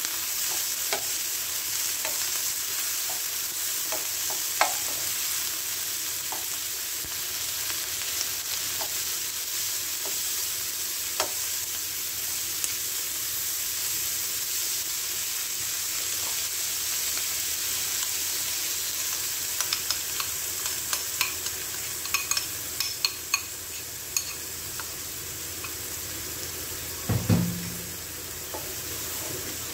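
Chopped onion and bell pepper sizzling in a nonstick wok as they are stirred and tossed with a wooden spatula, with light taps and scrapes of the spatula against the pan. The taps come thicker in the last third, and there is one louder knock shortly before the end.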